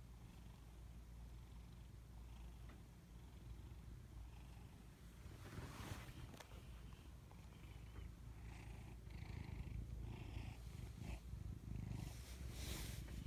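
Cat purring, a steady low rumble as it dozes off; from about halfway soft breathy rasps join in, and there is a brief noisier stretch near the end.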